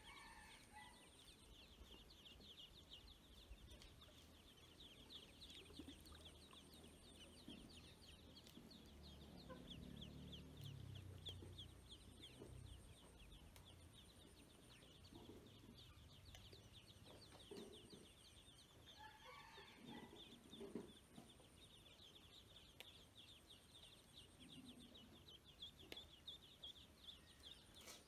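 A group of ducklings peeping almost continuously: many quick, high, overlapping peeps, faint overall. A faint high steady tone comes and goes behind them.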